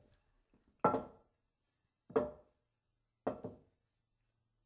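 Toy dishes knocking against the wooden play-kitchen cabinet and counter as they are taken out and set down: four separate knocks about a second apart, each with a short ring, the third a quick double.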